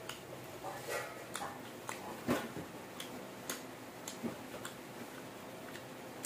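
Close-miked mouth sounds of a person chewing food with the mouth closed: irregular wet clicks and smacks, the strongest a little after two seconds in.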